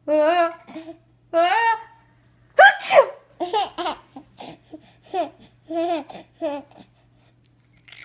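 A baby laughing: two drawn-out squeals, a loud shriek about two and a half seconds in, then a quick run of short giggles.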